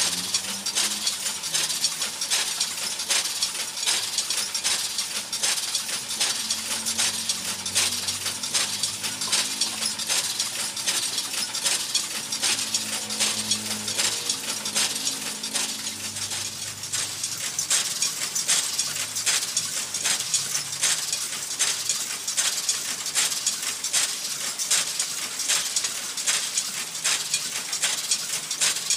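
Homemade mulch-film hole-punching machine running, its mechanism clattering with rapid, irregular metallic clicks and rattles over a faint low hum from its small electric gear motor.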